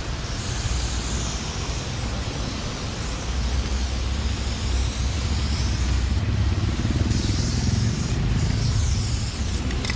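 Steady road-vehicle rumble with hiss, a little louder in the second half.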